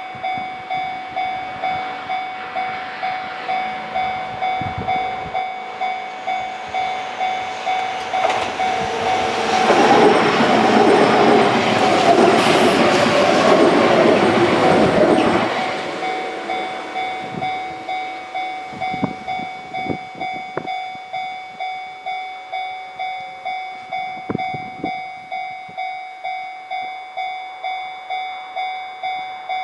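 Japanese level-crossing alarm ringing in an even, repeating rhythm. A Kintetsu Minami-Osaka Line train rumbles past over the crossing, building from about 8 seconds in, loudest around 10 to 15 seconds, then fading as the alarm keeps ringing.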